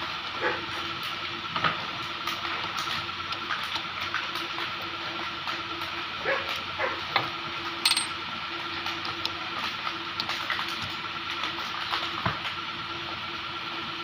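Torque wrench and socket clicking and clinking on cylinder head bolts as the head is torqued down in stages: scattered sharp metallic clicks, the loudest about eight seconds in, over a steady background hum.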